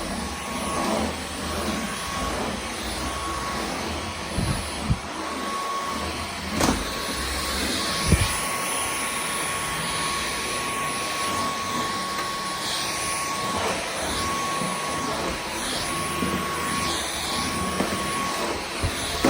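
Dyson V15 Detect Absolute cordless stick vacuum running steadily, a rushing noise with a thin whine. A few short knocks, the loudest about six and a half and eight seconds in.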